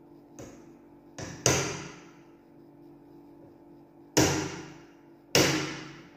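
Pliers used as a hammer, striking a nail to drive a tight retaining pin out of a Glock 17 replica pistol's frame. A couple of light taps come first, then three hard, sharp metal knocks spread over the next four seconds, each ringing briefly.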